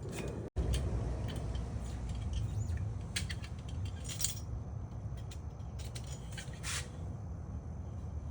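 A few light metallic clicks and clinks from hand tools working the spindle nut on a front wheel hub, set loose to adjust the bearing preload, over a steady low hum.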